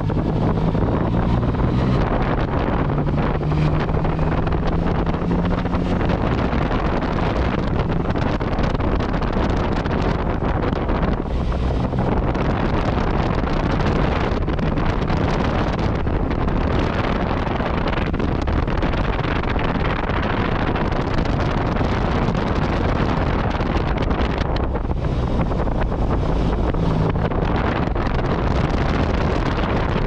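Wind rushing over the microphone while riding a Yamaha MT-09 Tracer motorcycle. Its three-cylinder engine hums underneath, heard most clearly in the first few seconds and again near the end.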